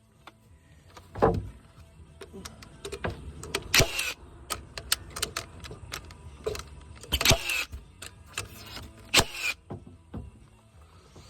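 Deck-building work: irregular clicks and knocks of lumber and tools, with a heavier thud about a second in and three short scraping, hissing bursts.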